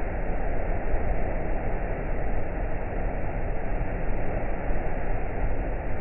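Waterfall with a steady, unbroken rush of falling water and a deep low rumble.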